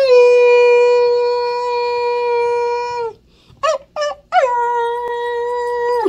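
Alaskan Malamute howling: one long, steady howl of about three seconds, two short yelps, then a second long howl that rises briefly as it starts.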